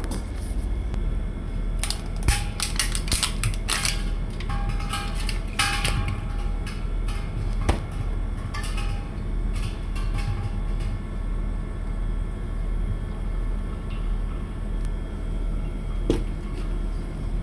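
Steady low hum of a running split air conditioner's outdoor unit. Over it comes a string of sharp clicks and light metallic knocks for several seconds, then one more knock near the end.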